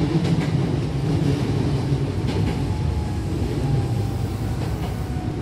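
Hankyu electric train running, heard from inside the carriage: a steady low rumble of wheels on rail with a few faint clicks, and a faint whine that slowly drops in pitch as the train slows.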